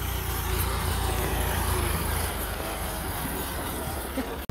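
Farm tractor's diesel engine running steadily as the tractor drives along, a low rumble.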